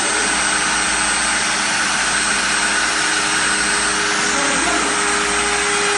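Flatbed CNC cutting table running with its head working over a sheet of Boardex board: steady, even machine noise with a constant hum.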